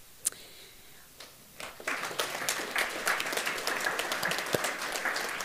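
Audience applauding, starting about a second and a half in and going on steadily.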